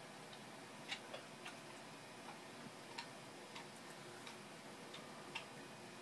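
Faint steady hiss with about ten small, irregularly spaced clicks and ticks.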